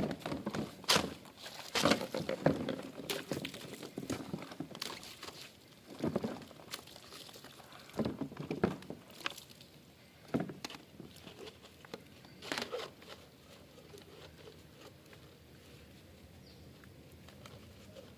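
Irregular knocks, clatter and scrubbing as plastic vacuum cleaner parts are washed and handled by hand in water, busiest in the first few seconds and dying down toward the end.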